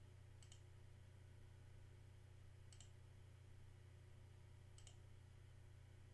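Three faint computer mouse clicks, about two seconds apart, over a steady low hum: clicks placing the endpoints of lines in a CAD sketch.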